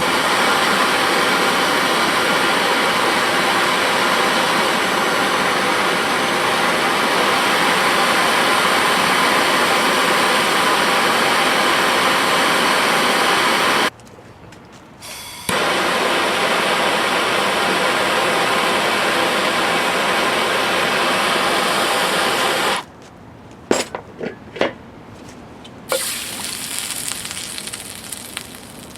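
Steady, loud hissing rush of a torch flame heating a 1970 4 hp Johnson outboard's stuck flywheel to free it from the crankshaft under a puller. The hiss stops briefly about halfway, resumes, and cuts off; a few sharp taps follow near the end, then a softer hiss.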